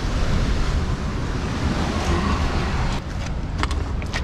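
Wind buffeting the microphone in a steady low rumble. From about three seconds in, a few sharp clicks and scrapes of shoes and gear against rock during the climb down.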